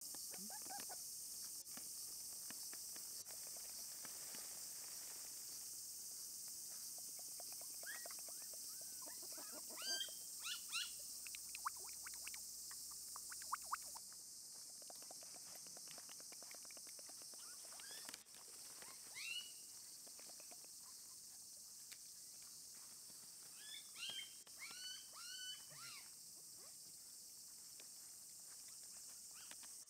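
Faint outdoor ambience with a steady high hiss, broken by three short runs of high, squeaky animal calls, about ten, nineteen and twenty-five seconds in, and a few sharp clicks between the first two.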